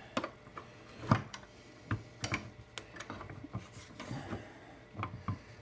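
Irregular sharp metal clicks and taps of a wrench on the oil burner's bleed valve, over a faint low steady hum.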